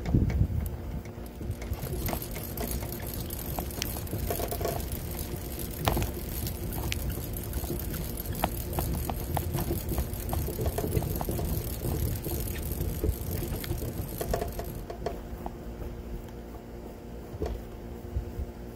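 Geared hand winder being cranked to wind a rubber-band model airplane motor: a steady whirring with scattered clicks, the high part of the whir stopping about fifteen seconds in, over a low rumble.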